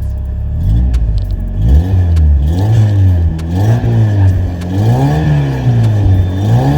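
Carbureted 1.8-litre four-cylinder engine of a VW Mk2 revved up and down several times in a row through a newly fitted muffler, the pitch swelling and dropping back each time. The owner says the badly running carburetor makes it burn too much fuel and smoke.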